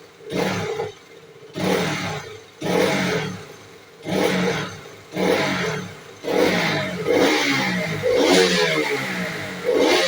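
KTM RC 200's single-cylinder engine being revved in quick throttle blips, about one a second, each rising and dropping back, then held up in longer, closer revs from about six seconds in.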